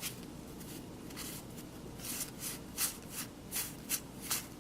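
Baseball cards and card packs being handled, making a series of short, irregular rustles that are densest in the second half.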